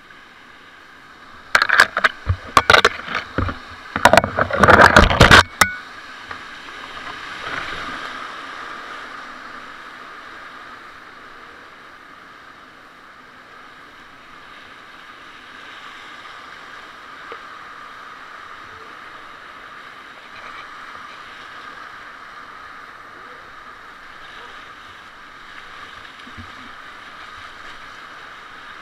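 Open canoe dropping over a weir: a few seconds of loud, crashing splashes as water hits the boat and camera, starting about a second and a half in, then the steady rush of whitewater rapids around the hull.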